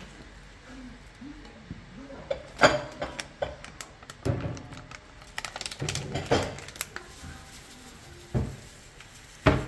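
Kitchen handling sounds: a plastic spice packet rustling and crinkling while seasoning is shaken over raw chicken in an aluminium bowl, with scattered sharp clicks and knocks, the loudest a few seconds in and near the end.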